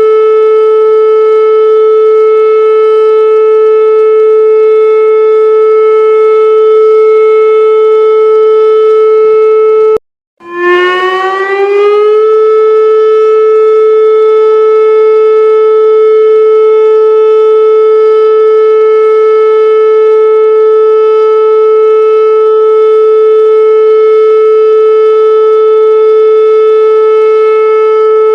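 Emergency warning siren sounding one steady tone. About ten seconds in it cuts out for a moment, then glides back up to pitch and holds steady again.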